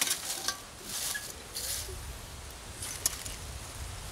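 A ferro rod struck over a small wood-burning stove: several short, harsh scrapes in quick succession, with a sharp click about three seconds in.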